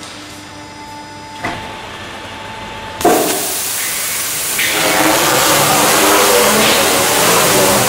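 Rotary-arm stretch wrapping machine at work: a quieter machine hum with a single click about a second and a half in, then, about three seconds in, a sudden loud, noisy mechanical rush as the wrapping arm runs and stretch film is drawn onto the pallet, growing louder again about a second later.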